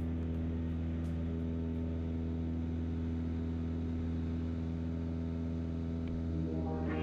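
Cessna 172's piston engine and propeller droning steadily in flight, heard from inside the cabin. Music fades in near the end.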